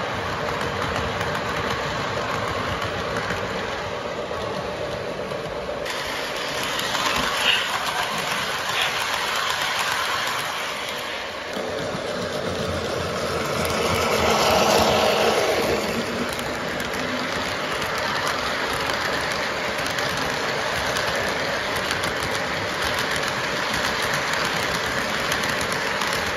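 Lionel model train running on its track: steady rolling wheel noise and motor hum, loudest about halfway through as the diesel locomotive passes close by.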